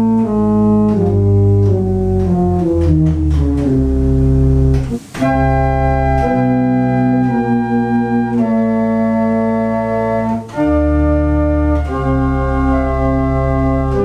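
Church organ pipes playing slow, held chords, with a deep, boomy bass from large wooden flute pipes sounding an octave below the other ranks. The chords change every second or so, with two brief breaks, and one pipe sounds a bit out of tune.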